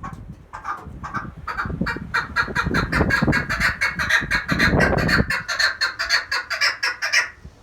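Hen chukar partridge calling: a run of clucking notes that starts slow and speeds up into a rapid chatter, then cuts off abruptly near the end. It is the hen's call that draws cock partridges.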